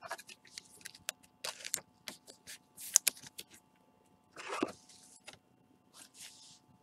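Trading cards and a clear plastic card holder being handled: scattered light clicks and taps, with short rustles of card stock and plastic. The sharpest click comes about three seconds in and a longer rustle about a second later.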